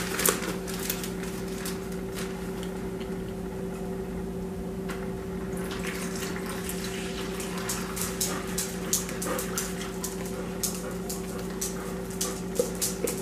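A drink being poured from a plastic cup into a small zip-top plastic bag, with light crackling and clicking of the plastic bag as it is handled, thickest from about six seconds on. A steady low hum runs underneath.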